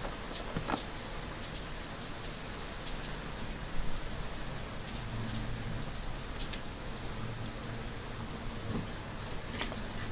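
Steady rain falling on surfaces, an even hiss with scattered raindrop ticks, and a short louder noise about four seconds in.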